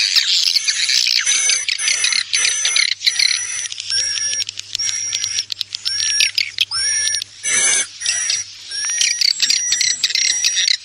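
Swiftlet lure track of many swiftlets twittering and chirping in dense, overlapping, repeated calls, mixed from roosting sounds to draw swiftlets into a nest house. A faint steady hum runs underneath, and a brief rustling burst comes about seven and a half seconds in.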